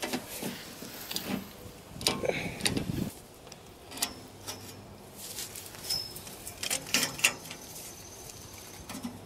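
Metal tool sounds from an adjustable wrench turning the square-headed bolt of a helical earth anchor to wind its steel strap tight: scattered clicks and knocks, with a longer scraping noise about two to three seconds in.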